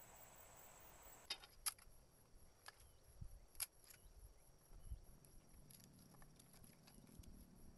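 Blade splitting and shaving thin sticks of kindling on driftwood: a few sharp, irregular cracks and taps, starting about a second in.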